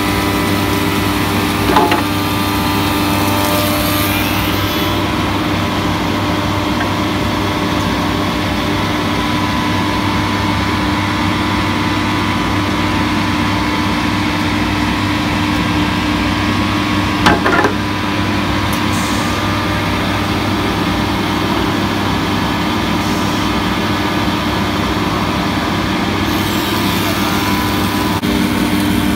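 Soukup Crafter window-and-door machining centre running, a steady mechanical hum with several steady tones, while it machines a timber window part. Sharp clicks about two seconds in and again about seventeen seconds in.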